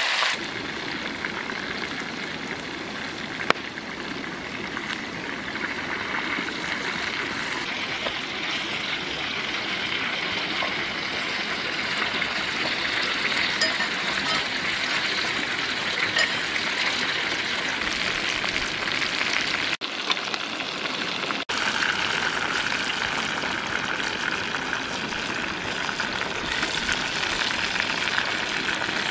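Chicken pieces deep-frying in hot oil in a clay pot: a steady sizzle with a few sharp pops.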